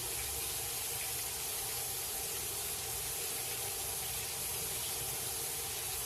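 Breaded fish shallow-frying in peanut oil in a cast iron pan: a steady sizzling hiss as moisture boils out of the fish as bubbles.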